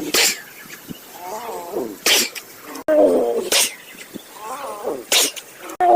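A tiger sneezing: four sharp, hissing sneezes, each paired with a short throaty vocal sound, in a sequence that repeats about every three seconds with abrupt cuts between repeats.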